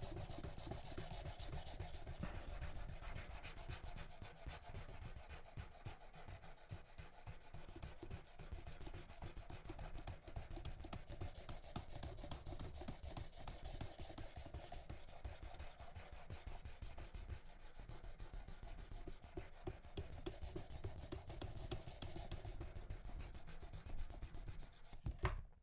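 Diamond sharpening stone, 240 grit, in a guided Worksharp Precision Adjust system, stroked rapidly back and forth along a knife edge, a faint continuous grinding rasp, grinding a new bevel into the soft steel at about 27 degrees. A click near the end as the stroking stops.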